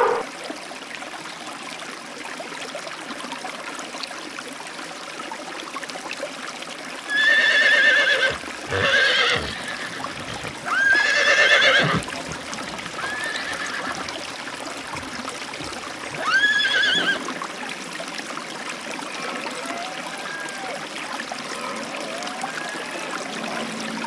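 Flowing river water, then a horse whinnying: five short calls in the middle stretch, the loudest about halfway through.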